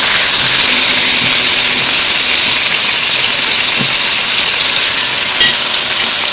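Egg bhurji sizzling steadily in a metal kadai while it is stirred, with one short clink about five seconds in.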